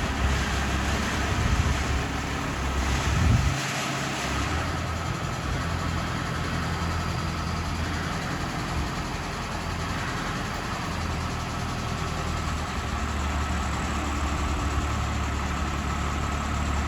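Engine of a wheeled rotary drilling rig running steadily at idle, with a brief louder surge about three and a half seconds in.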